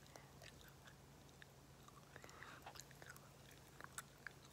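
Near silence: a faint steady low hum with a few soft, scattered clicks.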